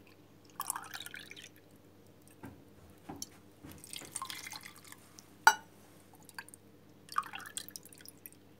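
Water poured from a tea glass into a cezve onto sliced onion, in several short splashing pours, the first rising in pitch as it fills. A single sharp clink about five and a half seconds in is the loudest sound.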